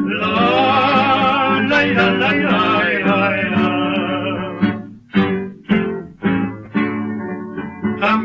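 Old 78 rpm record of an Argentine zamba for voices and two acoustic guitars: wordless male singing held on wavering notes for about four and a half seconds, then a series of separate guitar strums.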